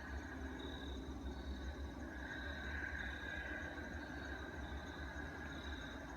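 An unexplained low rumble from the night sky, steady throughout, with a faint high tone that swells about two seconds in and fades after the middle. Crickets chirp steadily.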